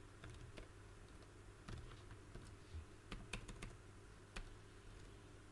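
Faint computer keyboard typing: irregular light key clicks.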